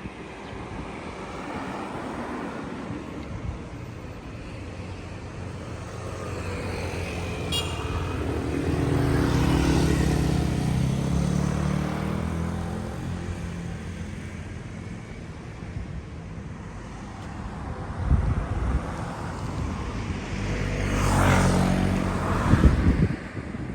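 Road vehicles passing over steady outdoor background noise: two pass-bys swell up and fade away, one about ten seconds in and a louder one about twenty-one seconds in, each with an engine hum that rises and falls in pitch.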